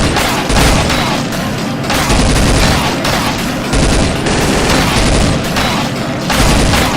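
Gunfire sound effects: dense rapid shots with several heavy booms, over background music.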